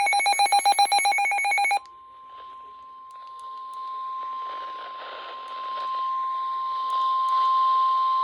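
Weather-radio alert: fast electronic beeping that stops about two seconds in, followed by the steady 1050 Hz NOAA Weather Radio warning alarm tone over radio hiss. The tone announces a warning broadcast, here a severe thunderstorm warning.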